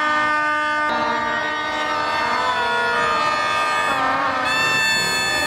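Many plastic party horns (vuvuzela-style trumpets) blown at once by a crowd: a dense blare of overlapping steady notes at different pitches, single horns dropping in and out.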